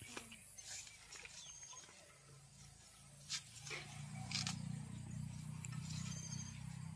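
Faint handling sounds as a cloth cover is untied and pulled off a clay pot: a few sharp clicks and light rustling. From about four seconds in there is a low steady hum.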